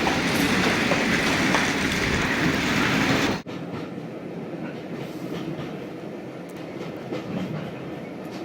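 A diesel-hauled heritage train running past, its wheels clattering over the rail joints. The sound cuts off abruptly about three and a half seconds in, leaving a much quieter background with faint ticks.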